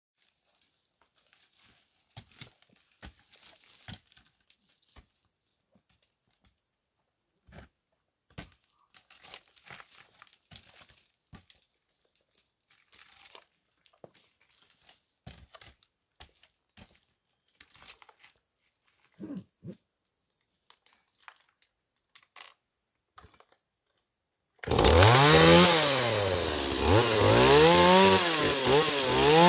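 Faint scattered knocks and scrapes from a climber's spurs and gear on a pine trunk, then about 25 seconds in a petrol chainsaw starts up loudly and is revved up and down about once a second.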